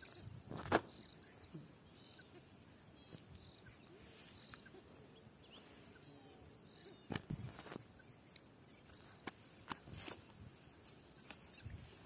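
Quiet outdoor background with faint bird chirps, broken by a few sharp clicks and knocks of handling: one about a second in, the loudest, and a scattered run of them from about seven to eleven seconds in.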